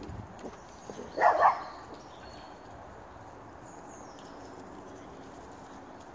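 A dog barking: two quick barks about a second in, over a faint steady outdoor background.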